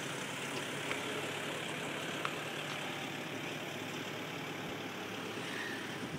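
A boat's engine running steadily at low revs, a constant low hum.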